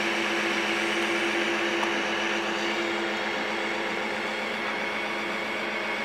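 Cordless drill running steadily, spinning a 350 V8's oil pump through a priming adapter in the distributor hole, with the oil pressure up at about 50 psi. It makes a steady whir whose tone changes slightly about halfway through.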